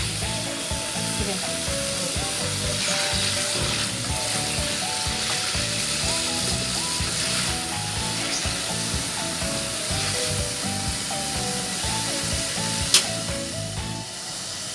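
Cubed potatoes sizzling steadily as they fry in oil in a wok while a spatula turns them, over background music. There is a single sharp tap near the end.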